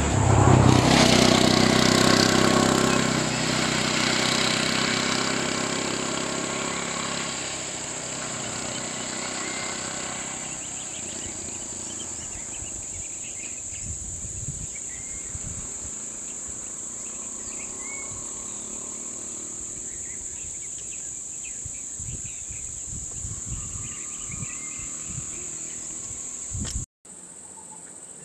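A motor vehicle's engine, loud at first and fading away over several seconds as it moves off, over a steady high-pitched drone of insects. Scattered low thuds follow once the engine has faded.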